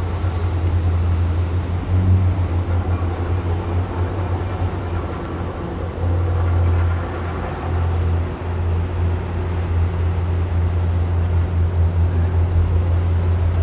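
A steady low rumble that swells and fades in loudness, with no clear pitched note.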